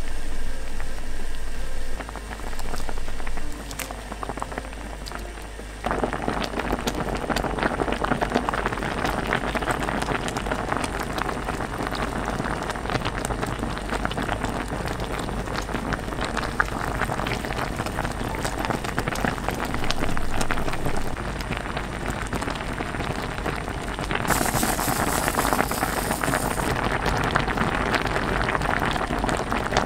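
Thick red tteokbokki sauce with rice cakes, fish cakes and oysters simmering in a pot, bubbling and popping in a dense, continuous crackle. The bubbling is quieter at first and thickens about six seconds in; near the end a brighter hiss comes in briefly.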